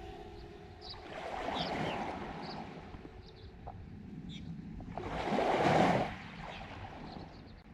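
Lake waves washing onto the shore: two swells of surf noise, a smaller one about a second in and a louder one about five seconds in, with faint short high chirps between them.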